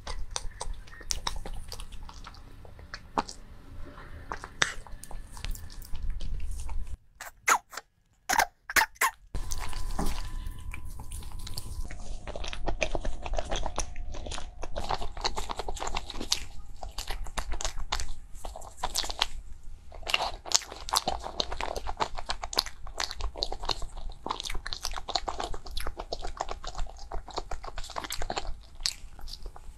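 Close-miked eating of a flaky black sesame mochi pastry roll: biting, crisp crunching and wet chewing. There is a short quiet break about seven seconds in, broken by a few sharp clicks.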